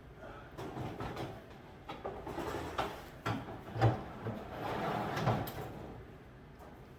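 A rabbit cage's waste pan being handled: scraping and sliding with a few clunks, the loudest about four seconds in.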